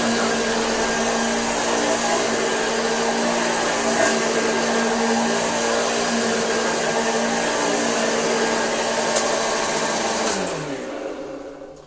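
Vintage Hoover upright vacuum cleaner running steadily with a constant motor hum. About ten seconds in it is switched off, and the motor winds down with its pitch falling as it fades away.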